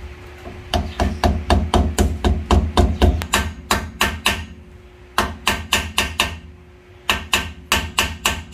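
A metal tool taps the dust cap into the centre of a 2008 Honda City's new rear wheel hub bearing, in four runs of quick, sharp, ringing taps several a second with short pauses between.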